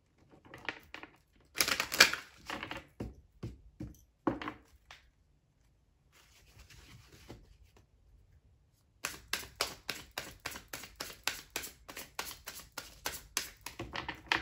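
A deck of oracle cards being handled and shuffled by hand: irregular rustles and taps at first, a soft sliding hiss, then from about nine seconds in a quick, even run of crisp card snaps, about three or four a second.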